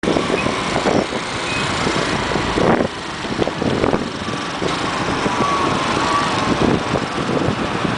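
Motorcycle or scooter riding through city traffic: steady engine, road and traffic noise with uneven surges in loudness.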